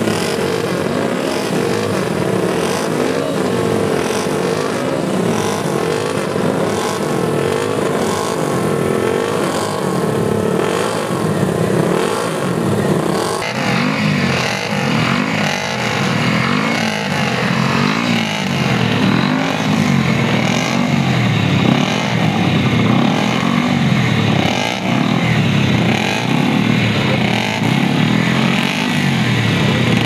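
Classic racing motorcycle engines running on the spot, throttles blipped over and over. From about 13 seconds in, the revs rise and fall about once a second.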